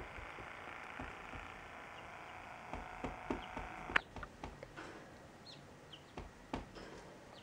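Young rooster chicks peeping in short, high, falling notes in the second half, among scattered sharp taps, one louder about four seconds in. A steady hiss runs underneath and stops about four seconds in.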